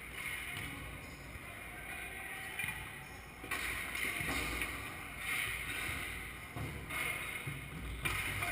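Steady background noise of a large echoing hall, swelling now and then with faint, indistinct voices.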